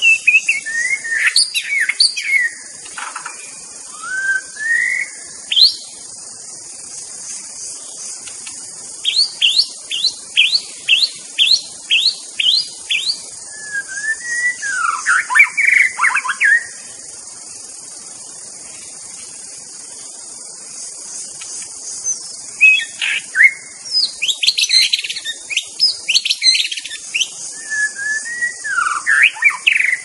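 White-rumped shama singing: phrases of clear, sweeping whistles, then a run of quick rising notes at about two a second. After a pause of several seconds, more varied song comes near the end, all over a steady high-pitched hiss.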